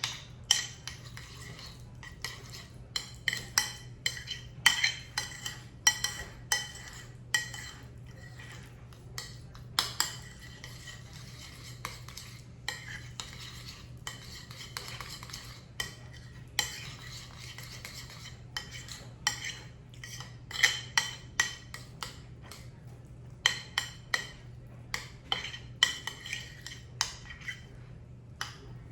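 Utensil scraping and clinking against a bowl as softened butter is mashed and stirred with chopped garlic scapes: many short, irregular strokes, some pausing for a second or two.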